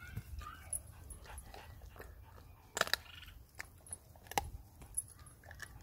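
German Shepherd gnawing and crunching on a raw animal skull, with a few sharp cracks of bone, the loudest about three seconds in and again after about four and a half seconds.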